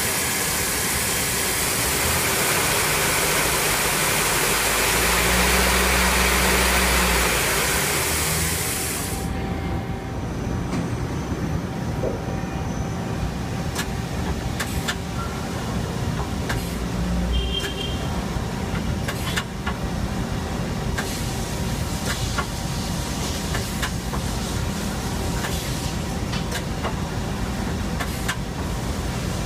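Okuma LB-300M CNC lathe running: a loud steady hiss for the first nine seconds over a low machine hum, which cuts off suddenly, leaving the machine's steady hum with scattered sharp clicks.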